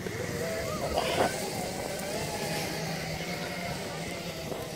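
Off-road Segway electric drive running as it rides over dry grass, a steady motor whine whose pitch wavers slightly with speed, over a low hum and rushing noise.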